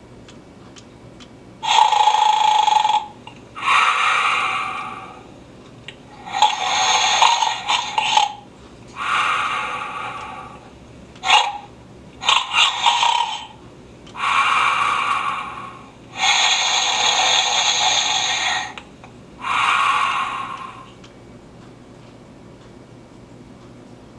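Hallmark Snoring Santa Keepsake ornament playing its recorded snoring sound effect through its small speaker: about nine snorts and breaths, each a second or two long with short gaps between, thin and tinny rather than deep. It stops about three seconds before the end.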